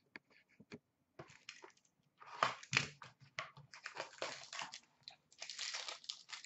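Foil wrapper of an Upper Deck Stature hockey card pack being torn open and crinkled by hand: irregular crackles and rustles with a few sharp clicks in the first second, getting busier from about two seconds in.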